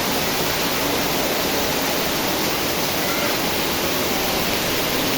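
Heavy downpour of rain, a steady even hiss of rainfall with no letup.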